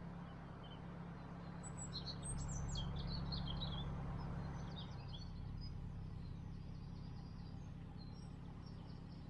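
Small birds chirping and singing over the low, steady hum of a narrowboat's engine. The engine hum drops away about halfway through, leaving the birdsong.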